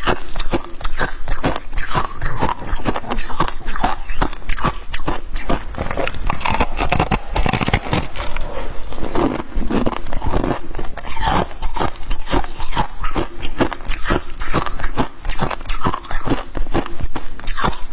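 Freezer frost being bitten and chewed: a dense, continuous run of crisp crunches and crackles.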